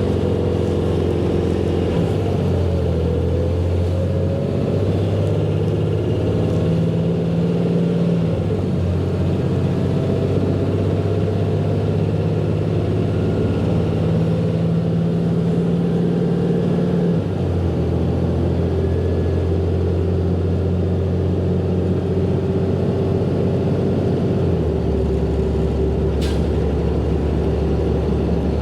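Ford F-750 truck's engine, heard from inside the cab, pulling away and driving on, its pitch rising and then changing in steps several times as the automatic transmission shifts.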